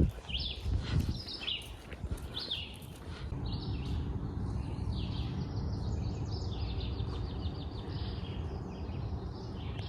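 Songbirds chirping: short falling chirps in the first few seconds, then a rapid trilling song from about three seconds in, over a steady low background rumble.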